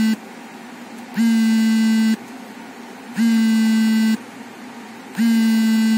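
Electronic buzzer sounding a low, steady-pitched buzz in an even on-off rhythm: three one-second buzzes, one every two seconds, with the end of another just as it starts.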